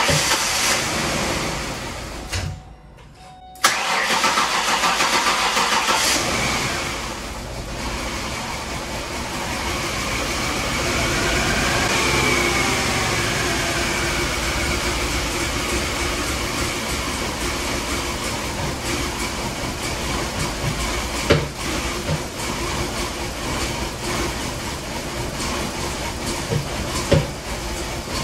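A 2008 Ford Explorer's 4.0-litre SOHC V6 starting and running, with a short break about three seconds in. The engine runs really rough, a sign of the fuel rail pressure fault the owner later finds. A couple of sharp knocks come in the second half.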